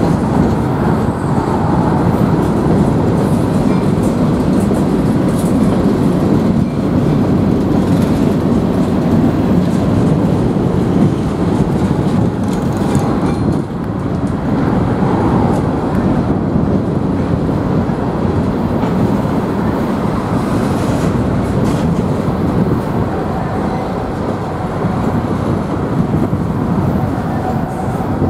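Freight train cars rolling past: a steady, loud rumble and rattle of steel wheels on rail, with a brief dip in loudness about halfway through.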